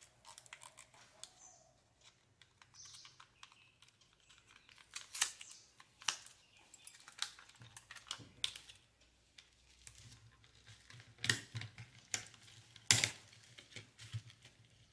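A laptop RAM module's retail packaging being opened and handled by hand: irregular sharp clicks and taps, with a few louder ones about two-thirds of the way through.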